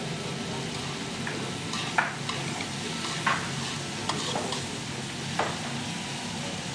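Kimchi and vegetables sizzling in a shallow metal pan while being stirred with metal spoons. A few sharp scrapes of metal on the pan stand out, the loudest about two and three seconds in.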